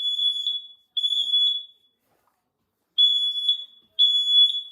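Smoke alarm sounding in alarm after being set off with sprayed test smoke. It gives loud, high-pitched beeps of about half a second each, one a second, in groups of three with a gap of about a second and a half between groups: the temporal-three evacuation pattern.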